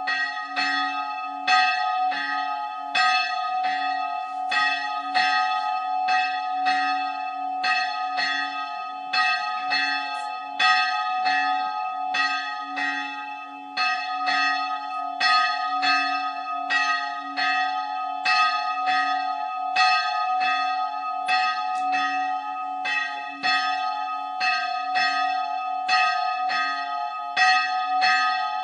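A single church bell ringing with even, repeated strokes, about two a second. Its tone hums on steadily between the strikes.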